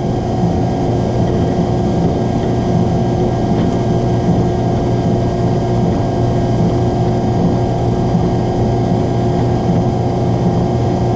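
Drill press motor running with a steady hum, a countersink bit turning in the chuck to deburr a drilled hole in a small iron piece.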